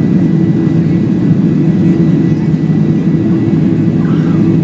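WestJet Boeing 737's jet engines running, heard from inside the cabin by the wing as a loud, steady drone with a constant hum.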